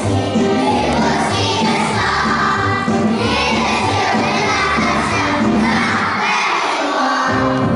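A group of young children singing and shouting along to backing music with a steady bass line; the bass drops out briefly near the end.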